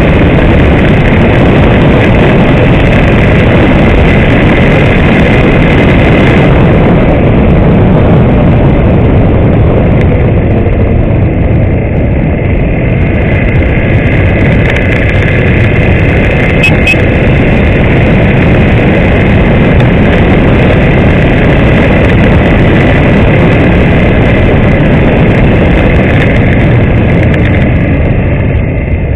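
Honda Tornado motorcycle's single-cylinder engine running while riding, under loud, steady wind rush on the microphone.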